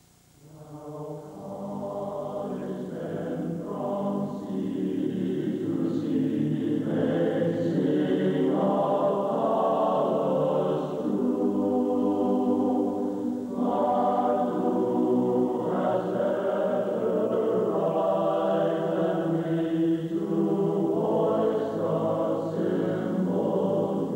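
Choir singing slow, sustained chords, fading in from silence over the first couple of seconds and swelling to full level.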